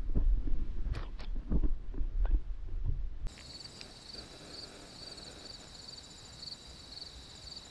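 Footsteps crunching through dry grass, irregular, over a low rumble on the microphone. About three seconds in this cuts off abruptly to a quieter, steady chorus of insects chirping in a fast pulsing rhythm.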